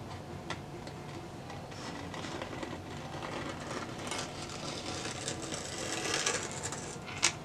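Razor blade cutting through grip tape along the edge of a skateboard deck: a continuous scratchy scraping that grows a little stronger about four seconds in, with a sharp click near the end.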